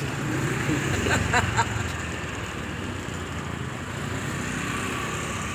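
Steady outdoor traffic noise: a constant low rumble with hiss, no single vehicle standing out.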